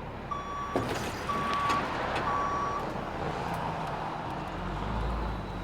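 A truck backing up: its reversing beeper sounds three times, about a second apart, over the running engine. The engine's low rumble grows louder near the end.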